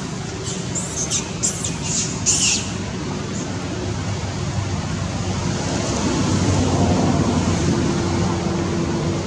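Steady low hum of a running motor vehicle, swelling about two-thirds of the way through as if one passes by. A handful of short high chirps sound in the first two and a half seconds.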